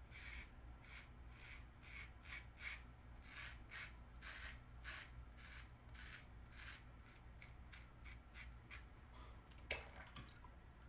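Single-edge safety razor with a GEM blade scraping through lathered stubble in a run of short, faint strokes, about two or three a second.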